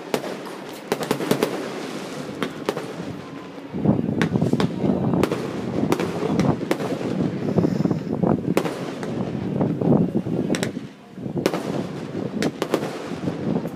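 Fireworks going off: a rapid string of sharp pops and crackles, with a dense rushing noise underneath from about four seconds in that drops away near eleven seconds.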